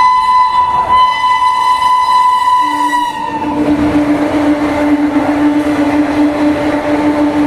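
WAP-5 electric locomotive's horn honking continuously as the express runs through at speed. A high, bright horn note cuts off about three seconds in, leaving a lower held horn note over the rushing noise of the train passing close by.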